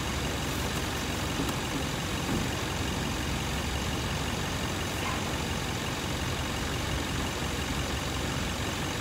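Steady low rumble of an idling car engine.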